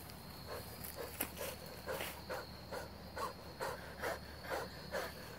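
Faint woodland insect drone, a steady high-pitched buzz, with a regular run of short faint chirps or calls about two to three a second.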